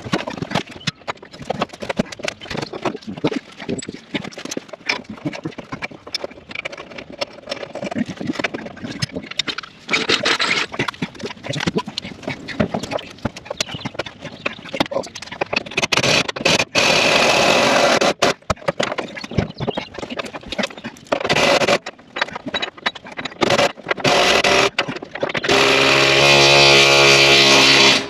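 Hand tools clicking and clattering during repair work, then several short bursts of a small motor-driven power tool. The last and loudest burst is a steady buzz lasting about two and a half seconds near the end.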